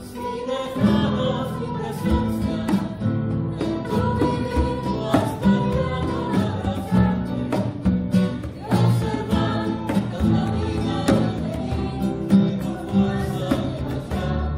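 Live acoustic ensemble playing a bolero: a group of singers in unison over classical guitars, double bass, violins and a hand drum. The voices come in about a second in after a brief dip.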